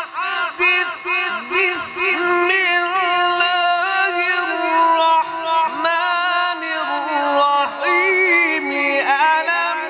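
A man reciting the Quran in melodic tajweed style into a microphone, drawing out long ornamented notes. Quick wavering turns of pitch come in the first two seconds, then longer held notes.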